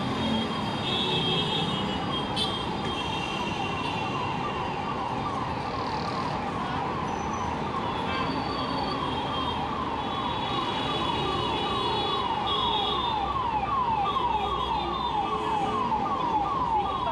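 Electronic emergency-vehicle siren sounding a rapid repeating falling whoop, about three sweeps a second, over city traffic noise.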